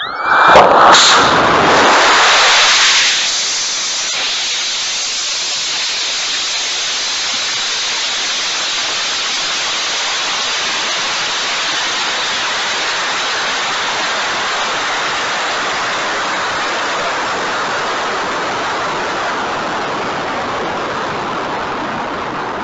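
Onboard sound of a sorbitol sugar rocket motor lighting about half a second in and burning loudly for about three seconds at liftoff. After burnout, a steady rushing hiss of air streaming past the rocket body and camera as it coasts upward.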